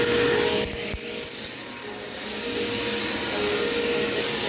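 Dirt Devil Quick Power vacuum cleaner running steadily, with a high whine over its motor noise; the level drops about a second in, then picks up again.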